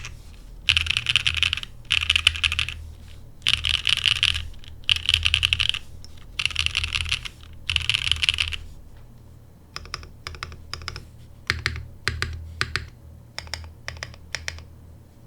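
Typing on a Frog Mini mechanical keyboard with lubed and filmed Cream Soda switches on a half FR4 plate under GMK keycaps: six fast runs of keystrokes, each about a second long, then slower, separate key presses over the last five seconds.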